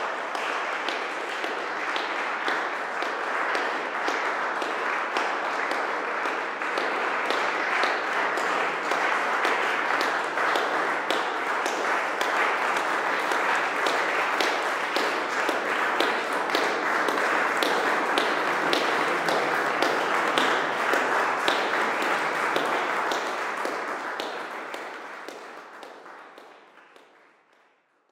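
Audience applauding steadily, a dense patter of many hands clapping, fading out over the last few seconds.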